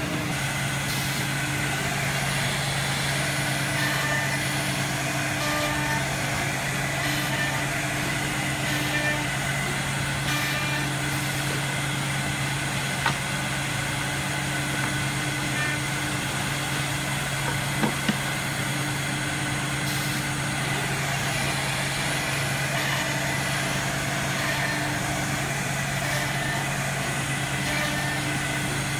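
Holztek CNC-2500B2 twin-head horizontal drilling machine running: a steady machine hum, with a few sharp clicks a little past the middle.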